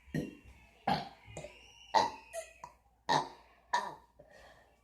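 Deliberate burps: a string of about six short burps in quick succession, roughly one every half second to a second.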